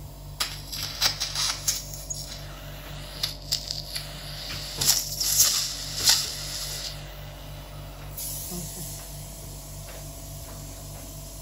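Medical suction machine running with a steady hum while a thin metal suction tip works inside a nostril, clearing the nasal passage after removal of the splints and packing. A run of sharp crackles and clicks comes through the first six seconds or so.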